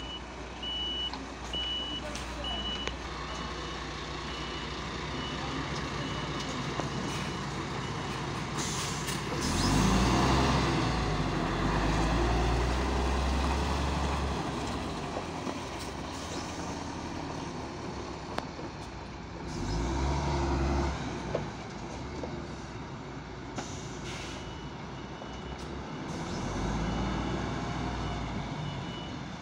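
Diesel engine of a MAN TGS 33.470 heavy fire tender running as the truck manoeuvres, its reversing beeper sounding in the first few seconds and again near the end. The engine grows louder twice, about ten seconds in and about twenty seconds in.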